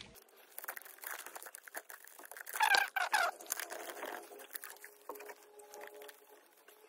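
Clear plastic door water-shield sheet crinkling and rustling with small clicks as hands handle it inside an opened car door, with a couple of short, high squeaky chirps about two and a half to three seconds in.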